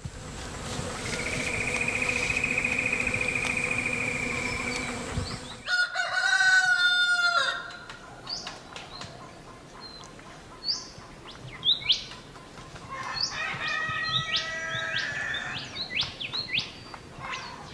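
A rooster crowing once about six seconds in, the loudest sound, followed by small birds chirping with short high calls and a few lower chicken calls. It opens with a steady high trill lasting about five seconds.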